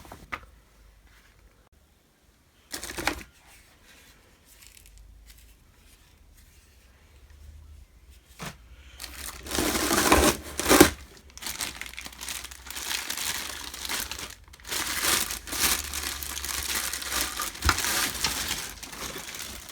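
Packaging crinkling and rustling as the vacuum cleaner's parts are unwrapped. There is a short rustle about three seconds in, then continuous crinkling handling from about nine seconds on, loudest around ten to eleven seconds.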